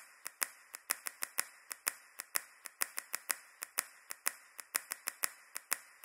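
Rapid run of sharp, dry clicks, about six a second and unevenly spaced.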